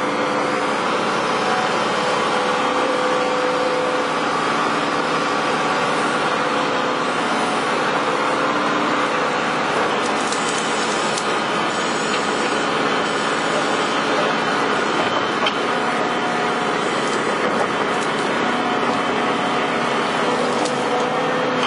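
Excavator's diesel engine running steadily.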